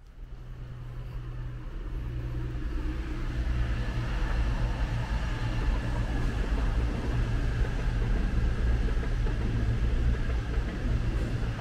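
Diesel multiple-unit passenger train's engines running with a steady low drone, growing louder over the first few seconds and then holding.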